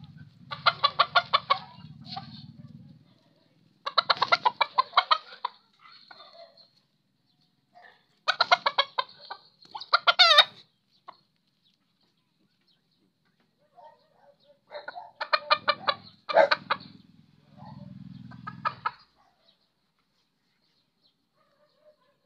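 Chicken clucking: about six short bursts of fast repeated clucks, each a second or two long and a few seconds apart. A low rumble runs under the first burst and one of the last.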